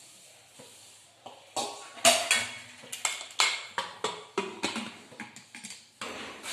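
Aluminium pressure cooker lid being fitted and locked onto the pot: a quick run of metal clanks and scrapes with a ringing edge, starting about a second and a half in.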